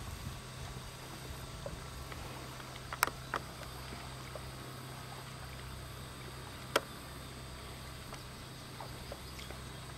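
Kayak being paddled on calm water: quiet paddling over a steady low hum, with sharp knocks about three seconds in, again just after, and once more near seven seconds, like the paddle striking the kayak.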